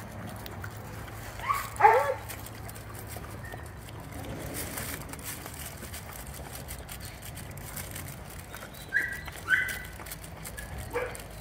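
A dog whining: a pair of short high whines, one falling in pitch, about two seconds in, and two more brief whines near the end.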